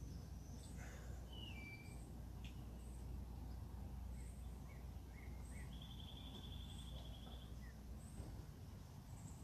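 Faint outdoor ambience of several birds calling: short high chirps about once a second, scattered short notes, and a trill lasting about a second and a half midway through, over a steady low rumble.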